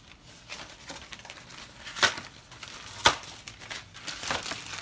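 Packaging being handled on a tabletop: rustling and crinkling, with two sharp knocks about a second apart, the first about two seconds in.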